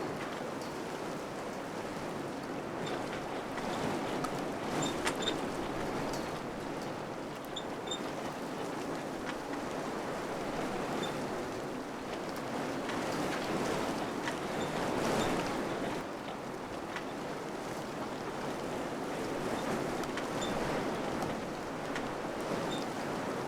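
Wind blowing in gusts, swelling and easing, with a few faint short high ticks scattered through.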